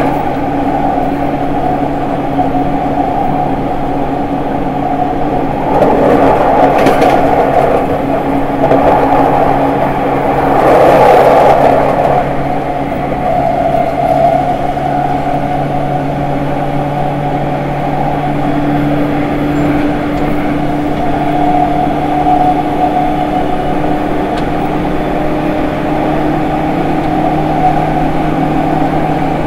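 E231-1000 series train with its updated late-type Hitachi IGBT-VVVF inverter running. It gives a steady hum with several held tones over rail noise heard at the gangway between cars, with louder rushing noise twice, about 6 and 11 seconds in.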